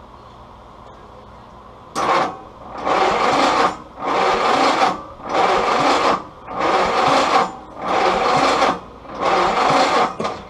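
Willys L134 four-cylinder engine being turned over by its starter with the spark plugs out for a compression test on cylinder 1. It starts about two seconds in with a short burst, then goes in about six even pulses a little over a second apart.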